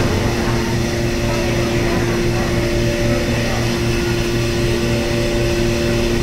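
Steady mechanical hum of subway station machinery, with constant hum tones and a low pulse repeating a few times a second.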